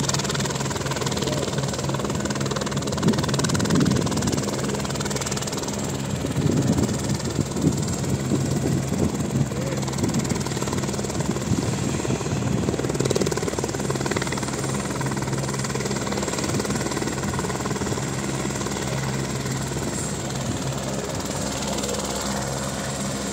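A helicopter on the ground with its rotor turning, its engine and blades making a steady drone with a low hum.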